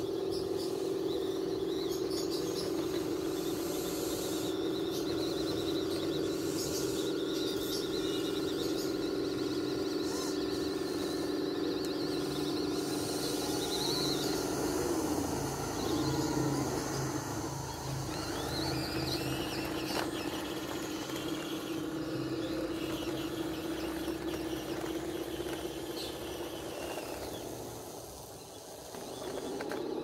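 Remote-control D11 bulldozer's electric track motors and gearboxes whining steadily as it drives and pushes dirt. The whine wavers in pitch around the middle as it changes speed, and fades near the end before picking up again.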